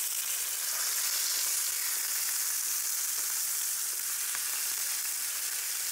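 Raw chicken breasts sizzling steadily in hot oil in a frying pan: an even high hiss with a few faint crackles.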